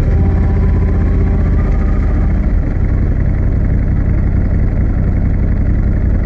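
An engine running steadily with a low, even rumble.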